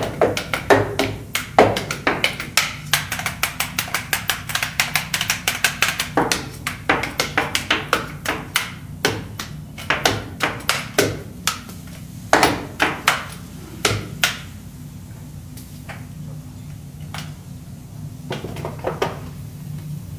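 Metal teppanyaki spatulas drummed on the iron griddle in a fast, rhythmic clatter of sharp strikes. The strikes stop about fourteen seconds in, and a few scattered taps follow over a steady low hum.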